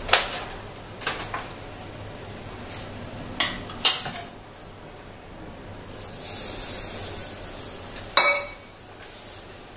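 Kitchen utensils and cookware being handled: a few sharp clinks and knocks, the loudest about three and a half to four seconds in and again about eight seconds in. A short hiss comes a little after six seconds.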